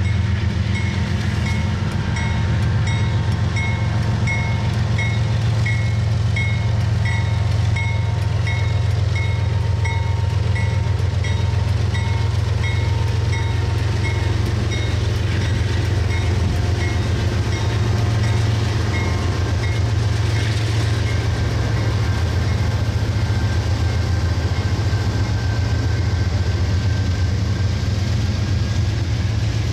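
CSX diesel freight locomotives passing close by with a steady low engine drone, giving way to freight cars rolling by on the rails. A bell rings about twice a second, fading out about twenty seconds in.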